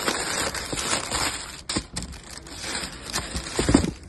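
Tissue paper rustling and crinkling as a sneaker is handled inside its shoebox, with a couple of soft knocks against the box.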